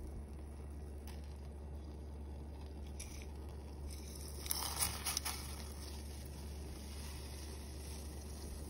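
A steel pot of water at a rolling boil, with a low steady hum under it. About halfway through, a brief crackling rustle and patter as dry whole spices and green tea leaves are tipped from a bowl into the boiling water.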